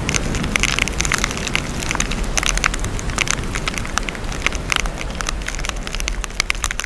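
Heavy rain hitting the camera at close range: a dense, irregular patter of sharp taps over a steady low rumble.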